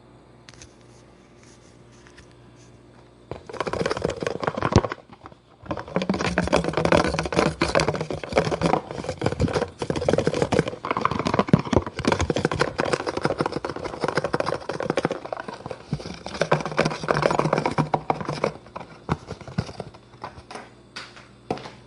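Top flap of a cardboard macaroni and cheese box being torn open and handled: a dense run of scratching, tearing and crackling cardboard noise that starts a few seconds in, breaks briefly, then carries on until it thins to scattered clicks near the end.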